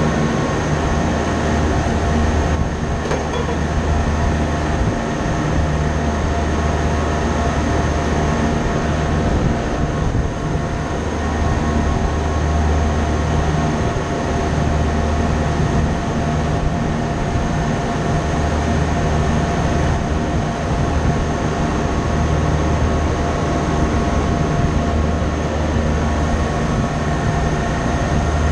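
Steady drone of running machinery: a strong low hum with several steady tones over a constant rushing noise, unchanging throughout.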